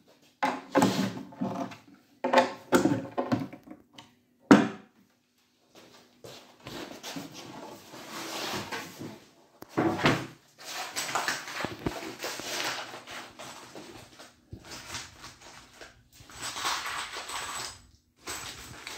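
Pine furniture boards being handled and shifted about: a single sharp wooden knock about four and a half seconds in, then long stretches of scraping and rubbing as the boards are moved.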